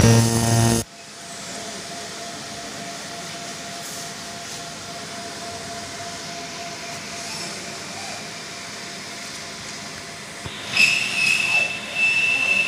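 30 W fiber laser marking machine running: a buzzing tone that cuts off abruptly within the first second, then a steady hiss with a faint hum. Near the end a high whine comes in twice.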